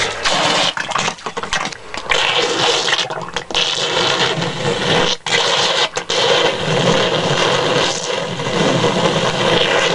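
Dirty water draining fast through a large industrial drain in a plastic tub, a steady rushing, with a stiff scrub brush swishing through the water and scraping the tub's sides. The rushing breaks off briefly a few times.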